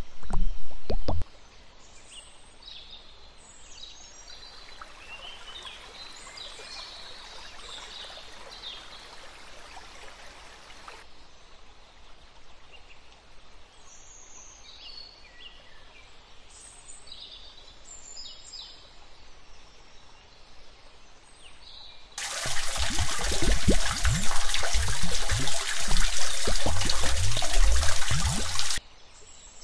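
Birds chirping faintly, then about 22 seconds in a loud rush of liquid pouring and splashing for about six seconds, which cuts off suddenly.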